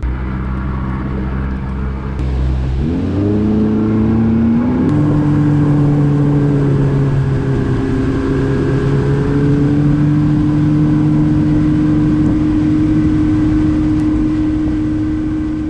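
Boat's outboard motor accelerating, its pitch climbing between about two and five seconds in, then running steadily at high speed.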